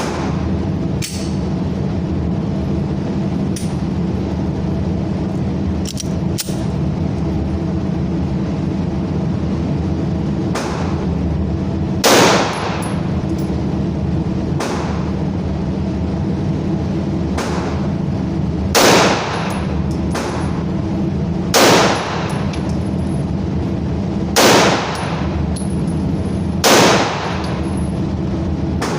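Five single 12-gauge shotgun shots, spaced a few seconds apart over the second half, from a Tokarev TAR P12 semi-automatic shotgun, each a sharp blast with a short ringing tail. Fainter sharp cracks and clinks come in between, over a steady background noise.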